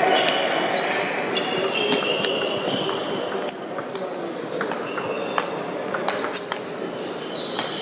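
Table tennis rally: the plastic ball clicking sharply off paddles and table, with sports shoes squeaking briefly and often on the hall floor, over a murmur of voices in the hall.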